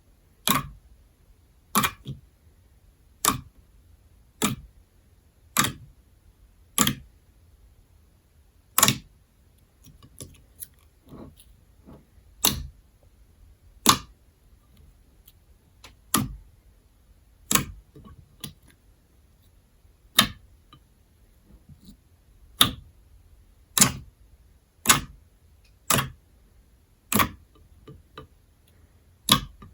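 Thick glossy glue slime worked by hand, giving a sharp pop of trapped air roughly once a second, about twenty in all.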